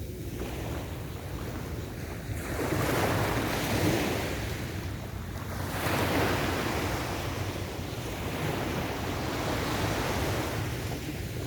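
Ocean waves washing onto a beach, with two larger waves breaking and washing up, one a few seconds in and another about halfway through, over a steady low rumble of wind on the microphone.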